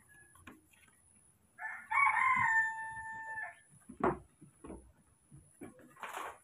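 A rooster crowing once, a long held call that starts about a second and a half in and lasts about two seconds. A few short knocks follow.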